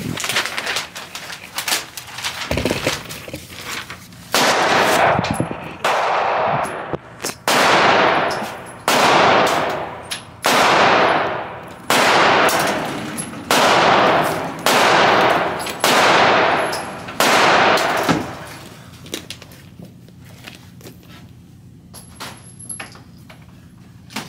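Gunshots on an indoor shooting range: about ten loud shots, roughly one and a half seconds apart, each ringing off through the enclosed range before the next.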